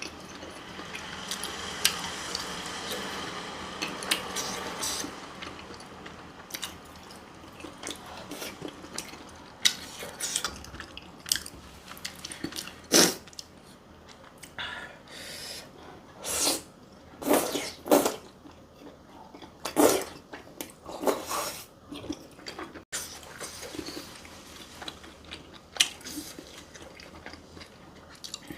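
Close-miked eating: a person chewing and biting food, with many short, sudden mouth and utensil sounds scattered irregularly.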